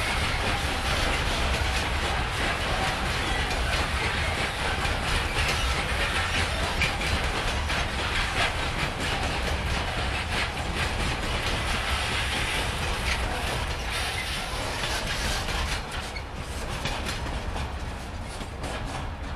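Train hauled by an ET22 electric locomotive rolling past at close range, its wheels clicking rapidly over the rail joints. The sound fades away over the last few seconds.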